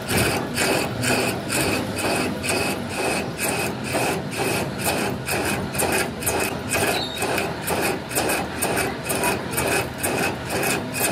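Steady, rhythmic rasping strokes of a tool working metal, about two strokes a second.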